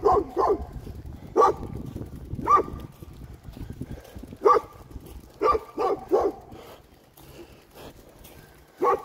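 A dog barking at the camera: about ten sharp barks, some single and some in quick runs of two or three, a second or so apart, growing softer in the second half.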